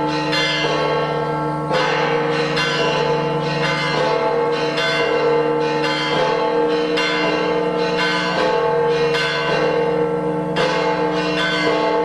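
Church bells pealing continuously: several bells struck in quick, uneven succession, a new stroke about every half second to a second, each one ringing on over the others.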